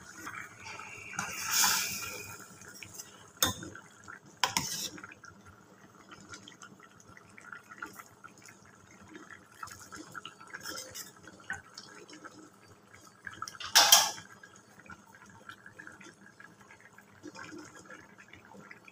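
A spoon knocking and scraping against a metal pan while stirring a simmering curry. There is a scrape about two seconds in, two clinks a second apart around four seconds, and the loudest clink about fourteen seconds in. Faint bubbling and spattering of the curry fills the gaps.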